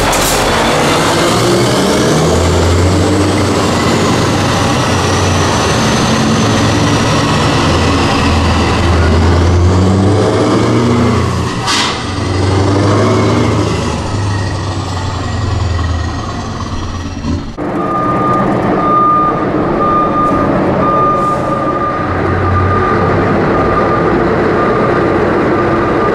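Scania V8 truck engines on open, straight-through exhaust pipes driving past, loud, the engine note rising and falling in steps as they pull away through the gears. Partway through the sound changes abruptly to another passing truck, and a repeated high beep sounds over it to the end.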